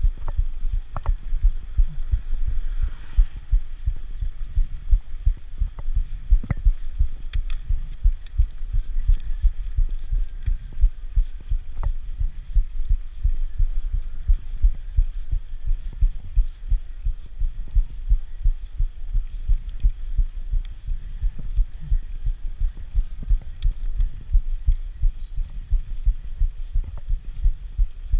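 Low, irregular thumping rumble on the camera microphone from riding a mountain bike uphill, several pulses a second, with a few light clicks and rattles from the bike.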